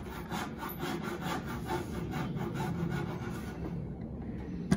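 Steel G-clamp's screw being wound tight with its T-bar handle: a rhythmic rasping, about three strokes a second, that fades out about three and a half seconds in. A single sharp knock near the end.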